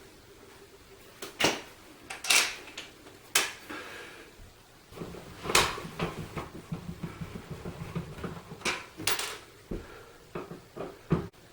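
Screws being backed out of a wall light switch and its cover plate with a screwdriver: scattered sharp clicks and knocks of the tool and plate, with a stretch of rapid scraping and rattling in the middle.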